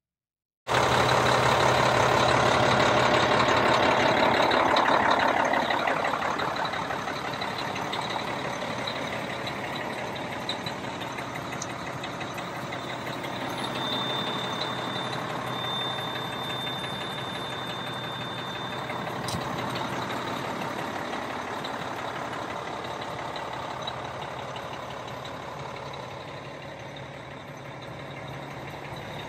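Caterpillar C-12 six-cylinder turbo diesel of a 2003 Oshkosh MK23 MTVR 6x6 truck idling steadily, loudest for the first few seconds and then a little quieter.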